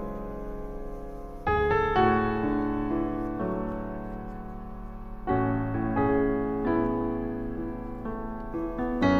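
Gentle background piano music: chords struck every second or few and left to ring out and fade.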